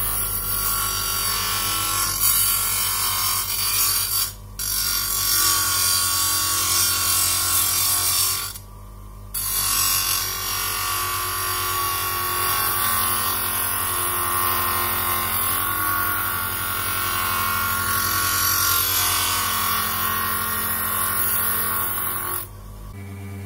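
An 8-inch bench grinder's stone wheel grinding excess weld metal off a metal armour knee cop: a steady, harsh grinding over the motor's hum. It breaks off briefly about four seconds in and again near nine seconds, when the piece is lifted from the wheel, and stops near the end, leaving the motor running.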